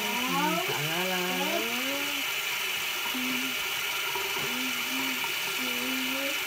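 Manual toothbrush scrubbing back and forth over teeth, a steady scratchy brushing. A voice hums gliding, wandering notes over it through a foamy mouth, then short held notes.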